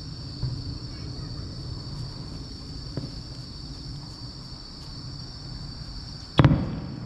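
Crickets chirp steadily against a low outdoor rumble, with faint thuds of distant fireworks. About six and a half seconds in comes a single loud firework boom with a short echo.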